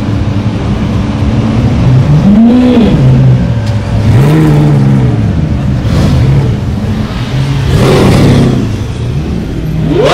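Mercedes-AMG C-Class coupé's engine idling with short throttle blips: three quick revs rise and fall in the first half, then a louder rush of exhaust noise about eight seconds in.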